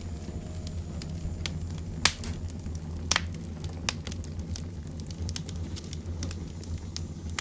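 Sparse sharp crackles and clicks over a steady low rumble, the loudest about two and three seconds in.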